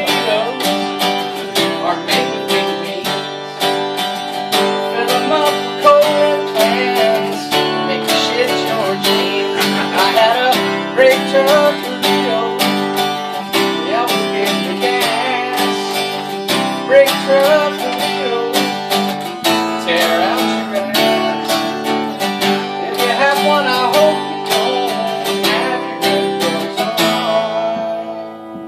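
Acoustic guitar strummed rhythmically through a song, the strumming easing off near the end as the last chord rings out.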